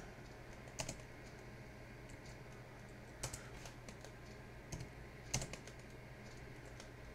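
A few scattered keystrokes on a computer keyboard, spaced irregularly a second or more apart, as a terminal command is typed slowly.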